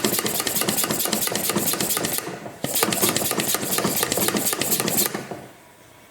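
Hand pump of a cooling-system pressure tester worked in rapid strokes, in two runs with a short pause about two seconds in, stopping about five seconds in: the cooling system is being pressurised to 20 psi to hunt an internal coolant leak.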